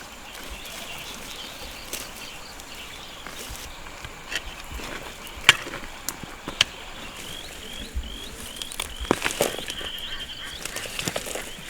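Outdoor rural ambience with a small animal's high chirps repeating steadily. A few sharp clicks come about halfway through, and more knocks follow near the end.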